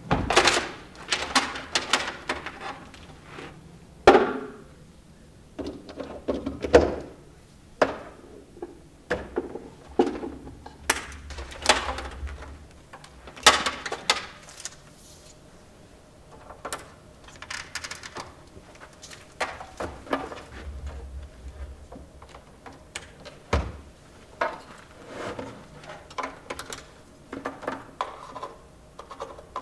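Irregular knocks, clicks and thunks of hardware being handled on a tabletop as measuring equipment is set up and cable connectors are plugged into a data recorder and a laptop. A few knocks stand out louder than the rest.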